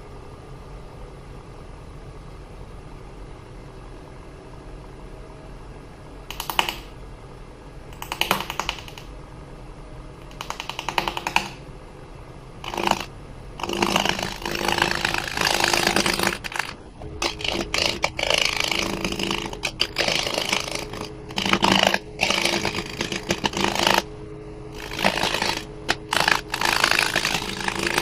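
Wood lathe running with a steady hum, then irregular loud scraping bursts, short ones at first and longer ones from about the middle on, as work is done on the spinning California buckeye burl bowl.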